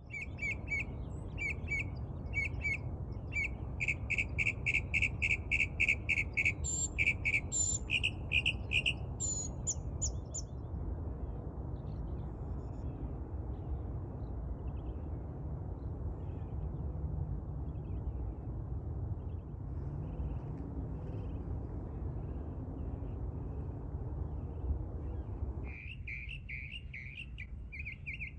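Male northern mockingbird singing, repeating each short phrase several times in quick succession, for about the first ten seconds. A long stretch of steady low rumble with no song follows, and the singing starts again near the end.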